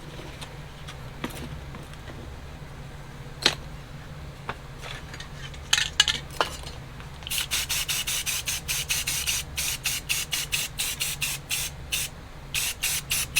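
Aerosol spray-paint can sprayed in quick short bursts, about four a second, starting about halfway through. A few separate clicks come before that, over a steady low hum.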